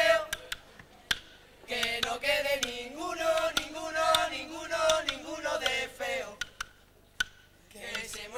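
Young male voices of a carnival cuarteto singing a melodic phrase together in held notes. There are two sung passages with a pause between them, and a few sharp clicks in the gaps.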